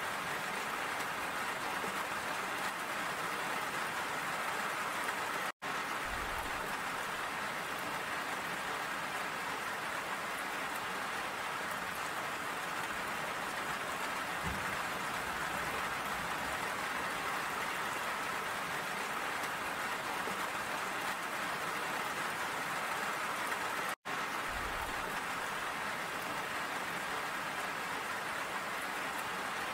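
Steady rain falling, an even hiss of drops that cuts out for an instant twice.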